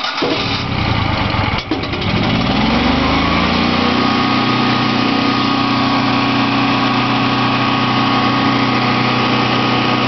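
Generac 12 kW LP-fuelled standby generator's 1.0 litre OHVI engine being cranked from cold on its second start attempt. It catches about two seconds in, rises in pitch up to governed speed, and settles into steady running.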